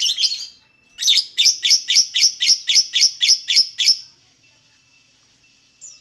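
Fischer's lovebird calling: a short burst of shrill chirps, then after a brief pause a quick run of about a dozen sharp chirps at roughly four a second, lasting some three seconds, and one more short chirp near the end.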